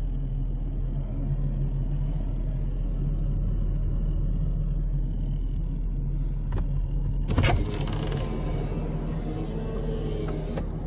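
Vehicle engine idling, heard from inside the cab as a steady low hum. About seven and a half seconds in there is a short loud burst of noise, with a rougher sound for about three seconds after it.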